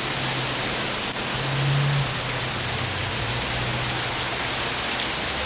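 Heavy rain pouring down in strong wind, a dense steady hiss. A low hum underneath swells briefly about a second and a half in.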